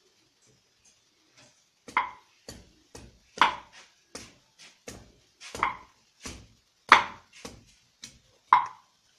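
Kitchen knife chopping into a whole green papaya on a wooden chopping board: sharp, separate chops at an uneven pace of about one or two a second, starting about two seconds in.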